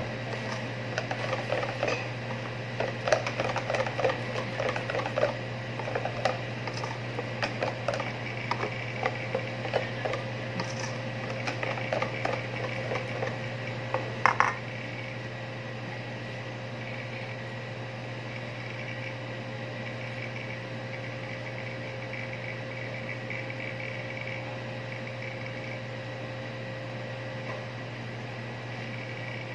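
Wire whisk beating cake batter in a stainless steel bowl: quick, irregular clicking and scraping of the wires against the metal. It stops about halfway through, leaving a steady low hum.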